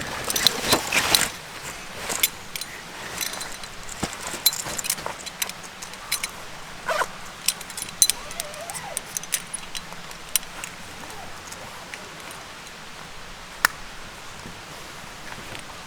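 Wood campfire crackling with sharp pops and snaps, busiest in the first second and a half, then scattered single snaps.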